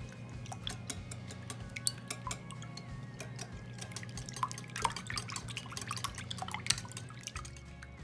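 Wire whisk beating eggs and milk in a glass bowl: rapid, irregular clicks of the wire against the glass and liquid splashing, busiest in the second half, over soft background music.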